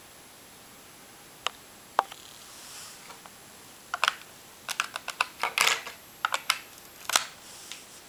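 Irregular sharp clicks, first a couple of single ones, then quick clusters of several clicks over the following few seconds.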